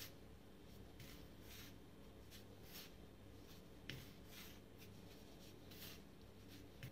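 Faint, soft rustling of hands rubbing oil into flour in a plastic bowl, in irregular strokes about one to two a second, with one slightly sharper tick about four seconds in.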